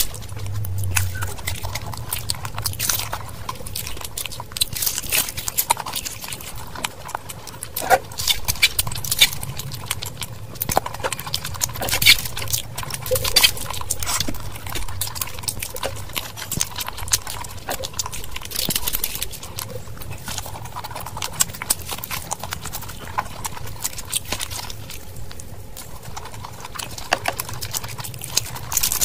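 Close-miked eating sounds: wet chewing, smacking and mouth clicks while eating saucy masala macaroni, coming irregularly throughout.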